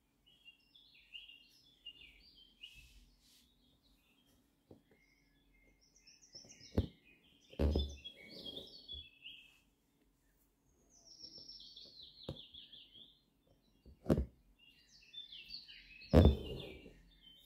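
Small birds chirping and singing throughout, including a quick descending run of notes partway through. Over them come a few sudden knocks and short rasps, the loudest about halfway and near the end, as the embroidery needle and thread are drawn through fabric stretched tight in a hoop.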